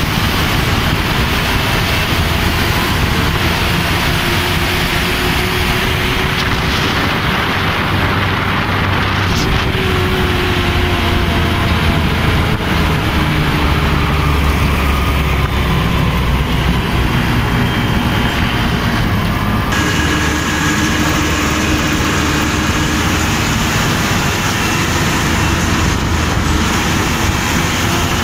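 Mahindra tractor's diesel engine running steadily under hard throttle, heard from the driver's seat, with a constant low drone and road noise.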